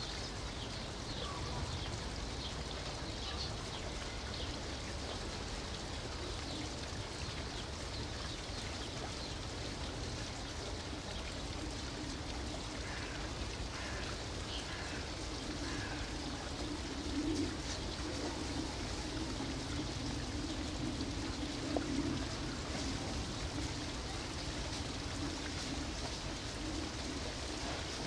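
Steady outdoor background noise with faint, scattered bird chirps, and a low murmuring sound partway through.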